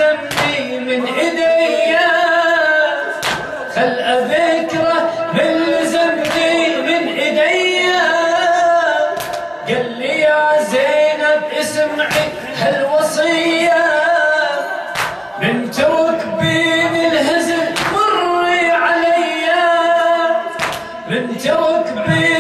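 Men singing an unaccompanied Arabic Shia lament (latmiya): a lead reciter's voice with a group singing along. Sharp slaps of hands striking chests (latm) come at uneven intervals.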